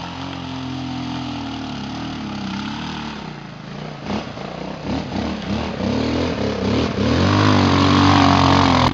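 Yamaha Raptor 660 quad's single-cylinder four-stroke engine revving up and down as it drives through deep creek water, with water splashing. The revs rise and fall repeatedly from about halfway in, and it is loudest near the end as it comes close.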